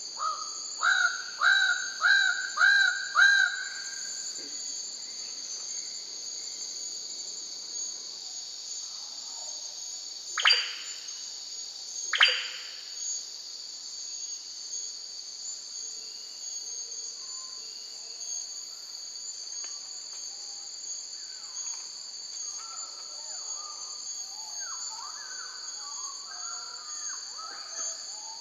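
Goldie's bird-of-paradise calling: a quick series of about six loud, ringing notes, roughly two a second, then two long whistles that slide steeply down in pitch a couple of seconds apart. A steady high-pitched insect drone runs underneath, and softer chattering bird notes come in near the end.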